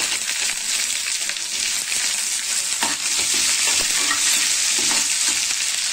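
Chopped onions sizzling in hot oil in a pan with chopped ginger and garlic, a steady frying hiss. A perforated metal spoon stirs them, knocking lightly against the pan now and then.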